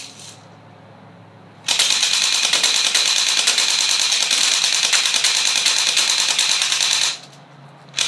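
Well D93 Uzi electric airsoft gun (AEG) firing fully automatic: one long burst of about five seconds, starting about one and a half seconds in. It is a fast, even rattle of rapid shots.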